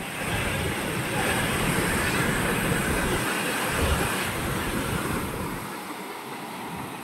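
Floodwater rushing over an overflowing small check dam, a steady roaring rush with wind buffeting the microphone. It eases a little after about five seconds.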